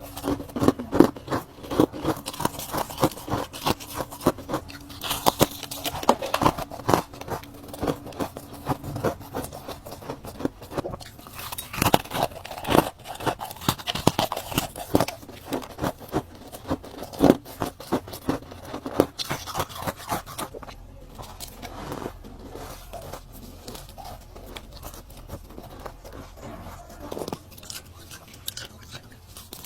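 Ice being bitten and crunched close to the mouth, a rapid run of sharp cracks and crunches that thins out to sparser, quieter chewing over the last third.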